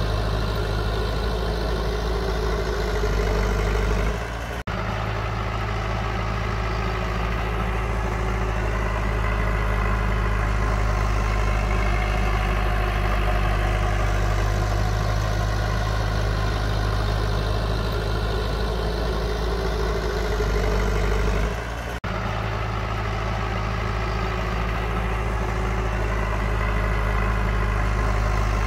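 Heavy diesel engine of earthmoving machinery running steadily, a continuous low drone. It drops briefly twice, about four and a half and twenty-two seconds in.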